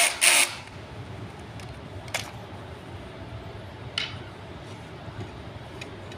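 A cordless drill driver runs, driving a screw into the wooden table frame, and stops about half a second in. After that come a few light clicks and knocks as the wooden parts and screws are handled.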